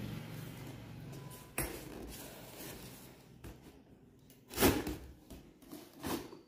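A black kitchen storage rack being pushed back into its torn packaging: rustling and scraping with a sharp knock about a second and a half in, and a louder scrape-and-knock about four and a half seconds in as it slides into place.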